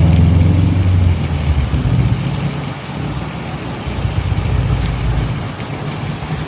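Motor vehicle traffic: a vehicle's engine running close by, loudest in the first second and a half and then easing off, over a steady rushing noise.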